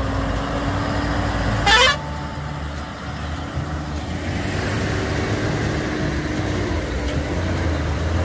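Heavy trucks' diesel engines running as they pull out, with a short loud burst about two seconds in.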